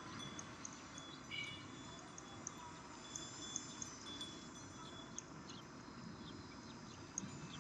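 Faint outdoor ambience with a few brief, high-pitched chirps and ticks, one short call about a second in.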